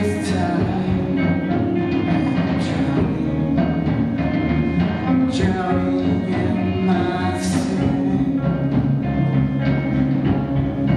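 Live rock band playing electric guitars and a drum kit, with a cymbal crash every two to three seconds.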